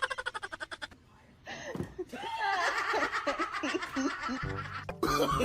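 People laughing and giggling: a fast run of laughter pulses that fades, then high, wavering chuckles after a short pause.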